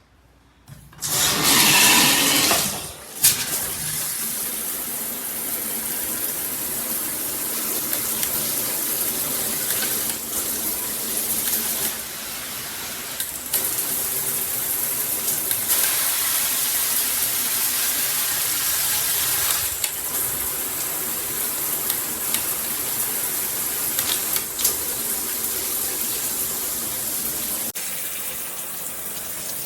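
Handheld shower head spraying water, turned on about a second in and loudest for the first couple of seconds. The sound of the spray changes several times as the head is switched between its spray modes.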